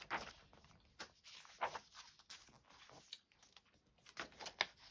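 Hands opening a thin paperback book and turning its pages: a series of faint, short paper rustles and soft taps, the loudest about a second and a half in and again near the end.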